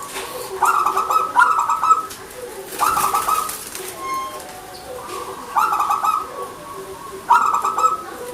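Zebra dove (perkutut) cooing: four loud phrases of rapid, pulsed coo notes, each lasting about a second. Fainter dove calls run underneath.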